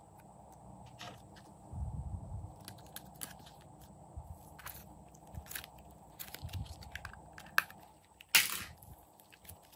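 Slime being handled by hand: sticky clicks and crackles from poking and pulling the slime, and a plastic slime tub being opened. Near the end comes a sharp click, then a louder short crackle.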